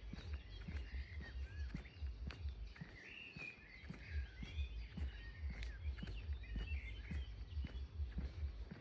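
Small birds chirping and singing in short warbling phrases, over frequent low thumps and ticks from footsteps on the ground.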